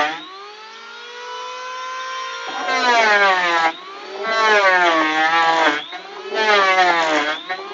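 Electric angle grinder with a sanding disc working a wooden boat hull. Its motor whine climbs steadily for the first couple of seconds, then comes in louder stretches of about a second where the pitch wavers and dips as the disc is pressed to the wood.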